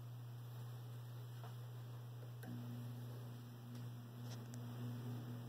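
Faint steady low electrical hum with a few light ticks; about two and a half seconds in, a click comes with a second, higher hum.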